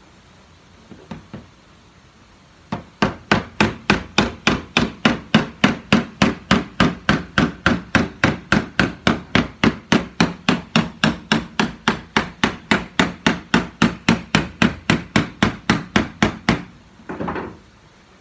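Steady hammering on the sheet metal of a car's rear quarter panel, about four blows a second for some fourteen seconds, as the panel is worked to take dings out. A short burst of noise follows the last blows.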